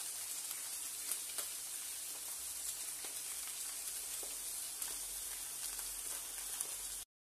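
Pieces of tuna frying in a hot grill pan: a steady sizzle with scattered small pops and crackles, cutting off abruptly near the end.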